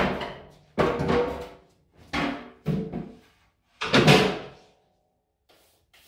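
Steel drive-on ramp of a four-post car lift being handled, giving four separate metal clanks with short ringing tails, the loudest near the end.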